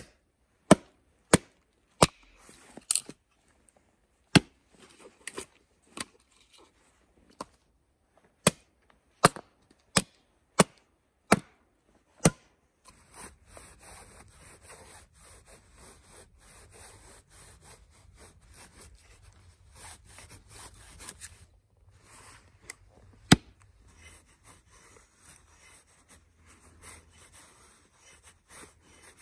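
Small axe splitting dry spruce: a dozen or so sharp, loud cracks of the blade biting into the wood, about one a second. Then the axe shaving thin curls off a spruce stick to make a feather stick, a steady scraping rasp with one sharp knock about two-thirds of the way through.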